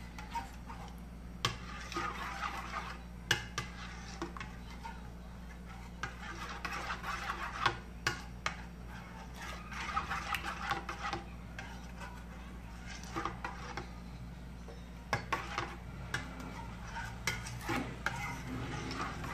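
Metal spoon stirring thick, freshly cooked tapioca-starch slime in a stainless steel bowl, scraping and clinking against the bowl's sides with several sharp knocks, over a steady low hum.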